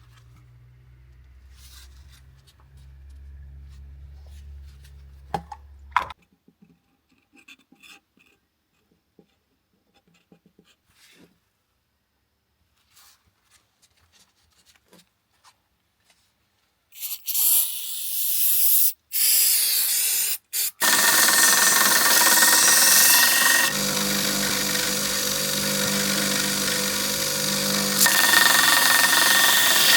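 A power tool in a knife-making workshop starts up in short fits about two-thirds of the way in, then runs steadily and loudly with a steady whine. Before that there is a low hum, a few sharp clicks, and then a long stretch of near silence.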